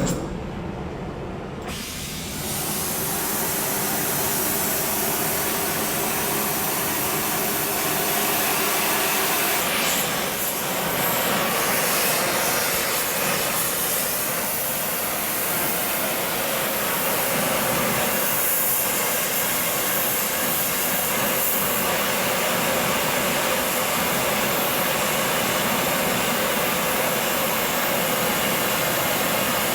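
Gas torch flame hissing steadily, starting with a sudden pop and getting louder about two seconds in, as it heats a steel bucking dog toward red hot for hardening.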